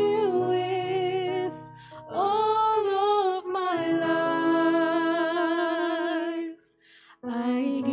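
A devotional hymn sung by one voice with vibrato, in long held phrases over sustained instrumental chords, with a brief pause between phrases near the end.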